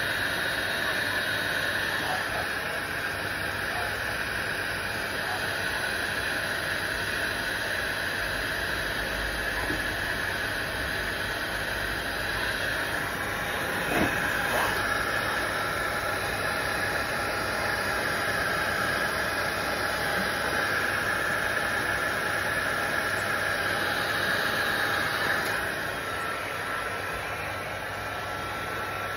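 Workzone handheld heat gun running steadily, its fan blowing with a rushing hiss and a whine, warming vinyl on a car bumper. There is a single knock about halfway through, and near the end the sound drops to a quieter rush with a thin steady tone.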